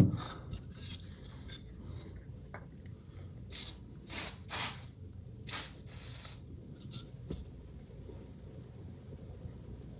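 Aerosol can of penetrating oil sprayed in about five short hissing bursts around the middle, onto a fastener that won't come loose.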